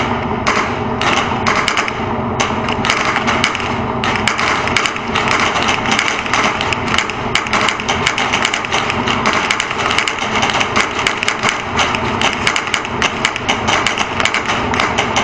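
Dense, irregular sharp cracks of gunfire over the steady running of a T-72 tank's diesel engine, heard from a camera mounted on the tank.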